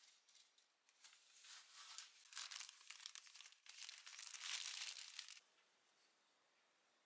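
Clear plastic bouquet wrapping crinkling and rustling as it is handled and pulled off a bunch of flowers. It starts about a second in and stops abruptly around five seconds in.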